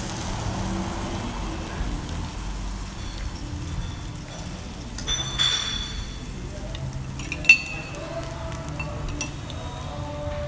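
Food sizzling on a dome-shaped tabletop barbecue grill, with chopsticks clinking against dishes. The loudest sound is one sharp clink about two-thirds of the way through.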